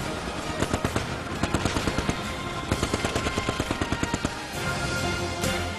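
Machine-gun fire in two long bursts of about ten rounds a second, with a short pause between, over background music; the firing stops about four seconds in and the music carries on.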